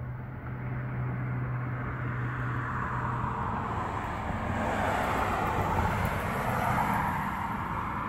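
A vehicle going by, its noise building to a peak about five to seven seconds in and then easing off, over a low steady hum that fades out about three seconds in.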